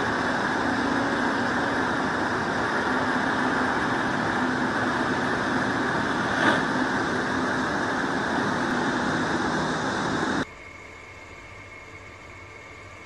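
Distant excavator diesel engine running steadily under heavy hiss, with a brief knock about six and a half seconds in. The sound drops abruptly to a faint hiss about ten seconds in.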